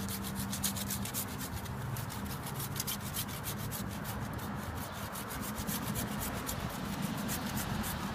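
Corona hand pruning saw cutting through the wood of a plum tree stump. It goes in rapid, even back-and-forth strokes that rasp steadily throughout.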